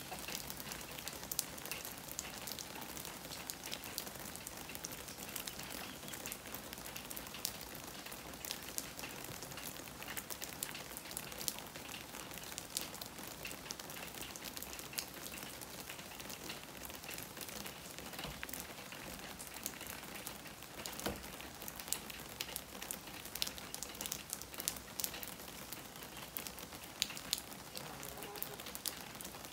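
Steady rain falling, an even hiss dotted with many separate raindrops ticking.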